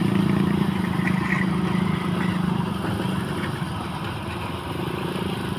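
An engine running steadily, slowly growing quieter.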